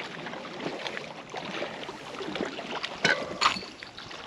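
Wind and lake water washing around a pier, an even rushing noise, with two sharp clicks about three seconds in, half a second apart.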